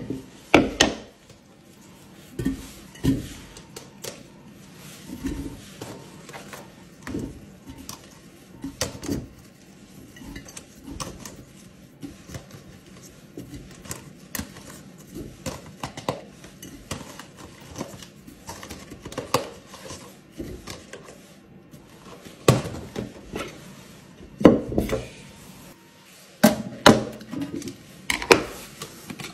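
A large glass jar, its bamboo lid and plastic containers handled on a wooden counter while laundry detergent pods are tipped into the jar. The result is a run of separate clinks, taps and knocks, with the louder ones bunched near the end.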